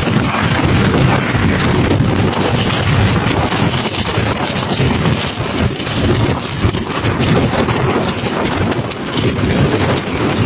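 Jet blast from a departing airliner buffeting the microphone: a loud, steady rush of wind noise with a deep rumble underneath.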